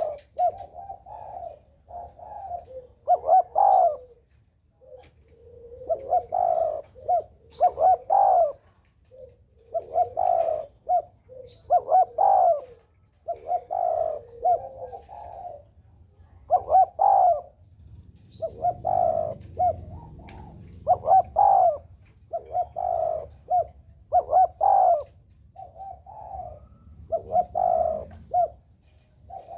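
Spotted dove cooing over and over in repeated phrases, with a few brief high chirps from another small bird.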